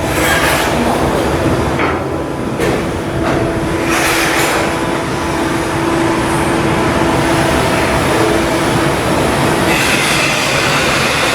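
Loud, steady heavy-machinery noise at a shipbuilding berth, with squealing metallic tones and several sharp knocks in the first half; a higher squeal joins about ten seconds in.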